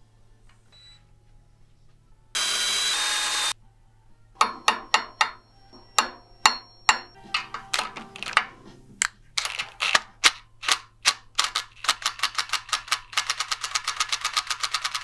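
Drill bit working in a hole in the bandsaw's cast-iron frame: a brief steady burst of whirring noise, then a run of sharp clicks, scattered at first and quickening into a fast, even clicking near the end.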